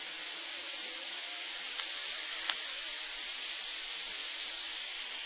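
Grand Vapor Trident dual-coil dripping atomizer hissing steadily through one long draw as the coils vaporize e-liquid, with a couple of faint pops about two seconds in; the hiss cuts off suddenly near the end.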